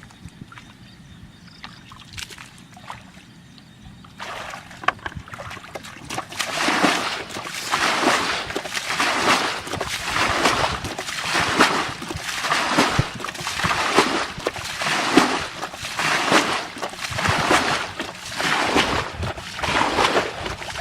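Water splashing and sloshing in a steady rhythm, about one splash a second, starting about four seconds in and growing louder.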